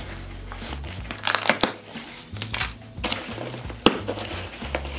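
A cardboard shipping box being pulled and torn open by hand, the cardboard crunching and the bubble wrap inside crinkling. It comes as an irregular run of crackles and rips, the sharpest just before four seconds in.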